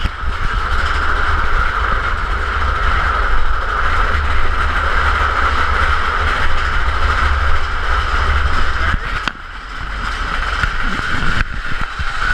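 Big Thunder Mountain Railroad mine-train coaster running on its track: a steady rumble of the cars with a continuous mid-pitched whir. The deep rumble drops away about nine seconds in.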